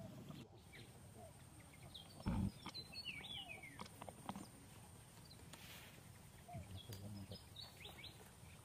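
Quiet, scattered short high chirps and falling squeaks from animals, clustered in two groups, with one dull thump about two seconds in.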